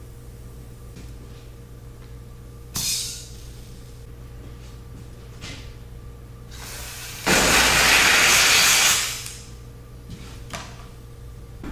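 A homemade pressurized spray can built from plumbing parts, spraying solvent into an engine's oil galleys to flush dirt out. There is a short hiss about three seconds in, then a loud spray of about two and a half seconds, over a steady low hum.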